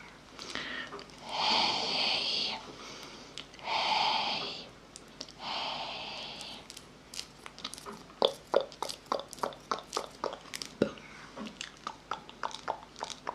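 Close-miked ASMR mouth sounds: three long breathy hisses, then from about halfway a quick, irregular run of wet tongue and lip clicks and smacks.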